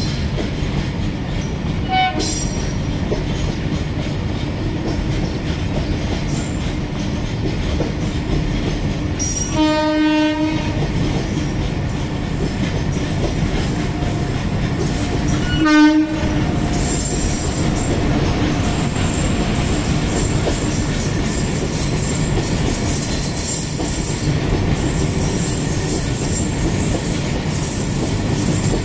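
A freight train of covered goods wagons rolling past with a steady rumble and clatter of wheels on the rails. A train horn sounds three times: a short toot about two seconds in, a blast of about a second around ten seconds in, and a short, loudest blast just past halfway.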